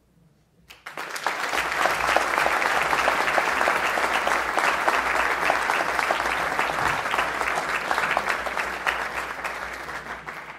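Audience applauding: the clapping sets in quickly about a second in, holds steady, and fades away near the end.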